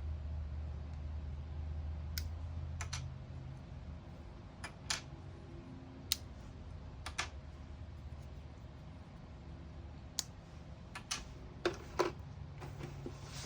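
Single sharp taps spaced irregularly, about nine in all, the loudest near the end, from tapping on a Snap Circuits electronics kit to trigger its sound circuit. A low hum fades out in the first few seconds.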